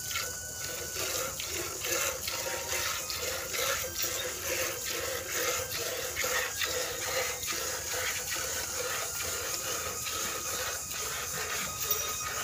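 Milk squirting into a pail as a cow is milked by hand: a rhythmic hiss of streams, about two or three squirts a second.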